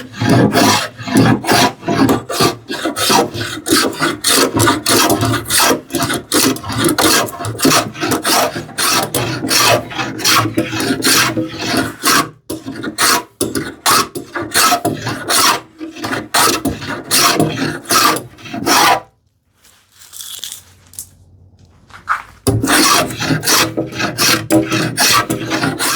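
Scrub plane taking heavy, rapid strokes across a wooden panel against the grain, a rasping cut of two or three strokes a second. The strokes stop for about three seconds near the end, then start again.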